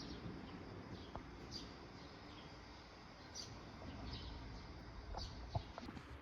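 Faint, short high chirps, one every second or so, over a low steady background rumble.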